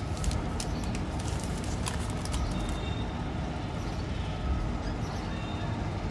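Plastic chocolate-bar wrapper crinkling and tearing as it is peeled open, a run of sharp crackles over the first three seconds or so, over a steady low background rumble.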